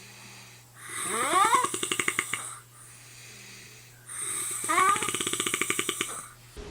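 Snoring: two long fluttering breaths about three seconds apart, each starting with a rising squeak.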